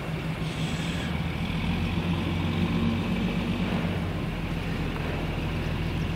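A steady low engine hum running throughout, over a haze of outdoor noise.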